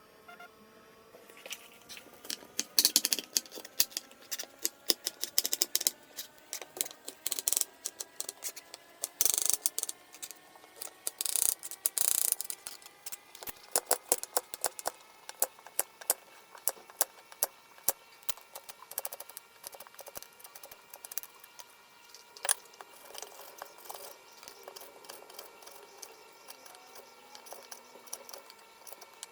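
Kitchen food-preparation sounds: quick, irregular clicks and knocks of utensils on hard surfaces. They are dense in the first half and sparser later, over a faint steady hum.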